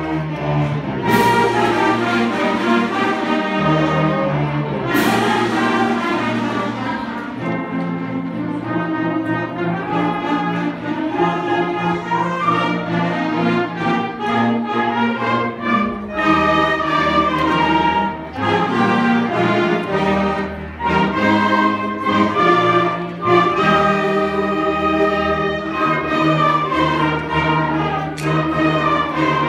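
Middle school concert band playing a holiday piece, woodwinds and brass together in full, sustained chords over a bass line. A percussion crash rings out about a second in and again at about five seconds, with a lighter one near the end.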